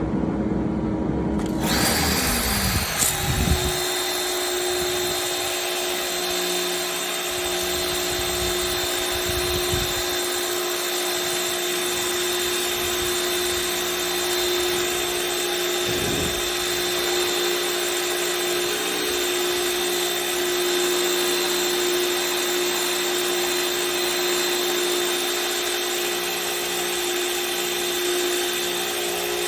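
Pressure washer running and spraying: a steady loud hiss with a steady machine whine underneath, starting about a second and a half in.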